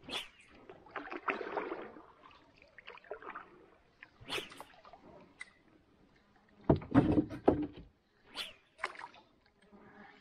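A small wooden boat being paddled: irregular paddle splashes and knocks against the hull, with a cluster of heavier knocks and sloshing about seven seconds in.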